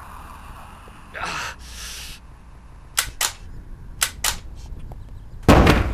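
Gunshot sound effects: two pairs of sharp cracks, the pairs about a second apart, then a louder, longer blast near the end. Before them come a couple of short noisy bursts.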